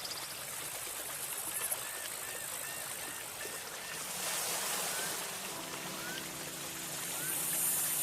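Wave-like rushing water ambience with a run of small chirping calls, opening a background music track; soft held music tones come in a little past halfway.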